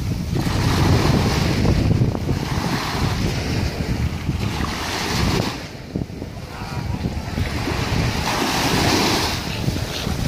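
Small sea waves washing onto a sandy shore, the wash swelling and fading every few seconds, with wind rumbling on the microphone.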